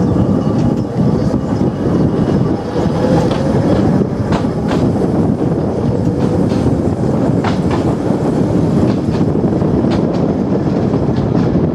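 Seaton Tramway open-top tram running along its track, a steady rumble of wheels on rail with a few sharp clicks as the wheels pass over rail joints.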